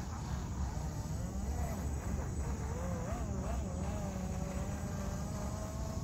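Small electric motor of a radio-controlled boat whining on part throttle, its pitch wavering up and down as the throttle changes.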